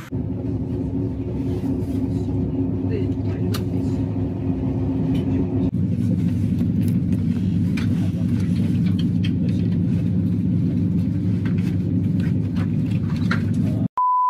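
Steady low rumble and hum of a moving passenger train heard from inside the cabin, with scattered faint clicks. Near the end it breaks off and a steady high beep takes over.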